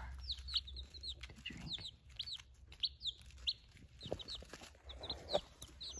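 A brooder full of baby chicks peeping: many short, high peeps overlapping one another throughout, with a few soft clicks about four and five seconds in and a low steady hum underneath.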